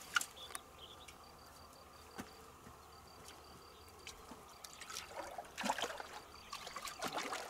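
A hooked catfish splashing and thrashing at the surface of a pool, in a run of splashes over the last couple of seconds, after a sharp click near the start. A faint, broken high insect buzz runs underneath.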